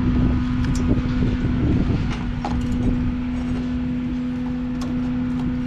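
Steady machine hum over a low rumble, with a few scattered light clicks and rattles from handling the wire and zip tie.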